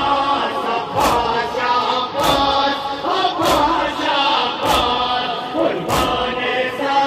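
A large crowd of men chanting a mourning lament in unison, broken by sharp, even thumps of chest-beating (matam) a little more than once a second.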